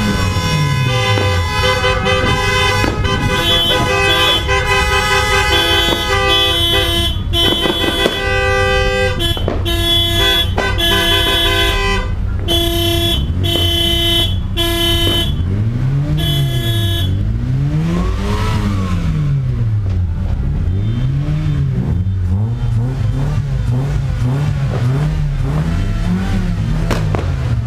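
A car's electronic multi-tone siren, alarm-style, sounding loudly. For about the first fifteen seconds it cycles through steady electronic tones that jump between pitches in a tune-like pattern with short breaks, then it switches to a wail that rises and falls about every two seconds.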